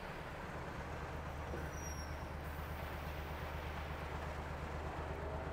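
Diesel engine of a Hino Profia heavy truck running steadily at low revs, heard from inside the cab, over an even hiss of heavy rain.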